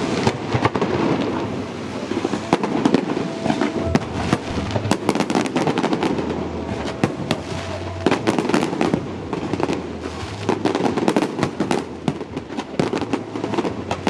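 Fireworks going off in rapid succession: many sharp bangs and crackles, one after another over a continuous din.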